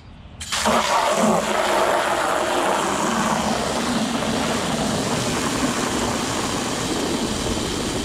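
Garden hose spray nozzle jetting a stream of water into a plastic bucket, splashing and foaming up soapy water. It starts suddenly about half a second in and then runs steadily.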